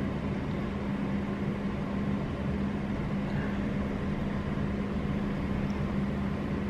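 Steady hum of a running kitchen appliance, a constant low tone over an even hiss, unchanging throughout.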